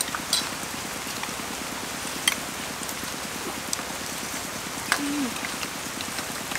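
Eating sounds: spoons and forks clicking now and then against plates and a metal serving tray as people eat noodle soup, over a steady rain-like hiss. A short low falling sound about five seconds in.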